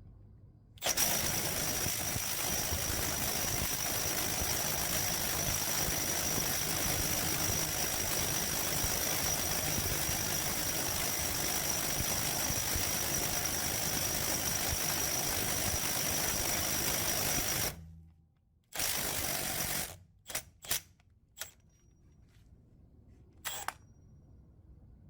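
Cordless right angle impact wrench hammering continuously for about seventeen seconds, then a second burst of about a second and a few brief trigger blips.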